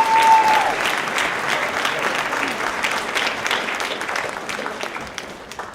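An audience applauding an honoree whose name has just been called, with a brief held high note from the crowd near the start; the clapping fades away toward the end.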